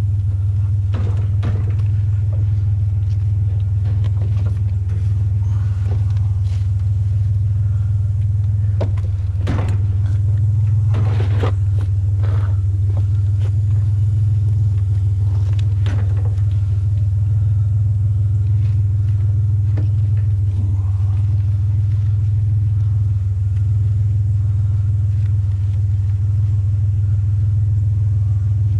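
Truck engine idling steadily, with scattered knocks and clatters from scrap being handled and tied down with rope. The loudest knocks come in a cluster about ten seconds in and once more a few seconds later.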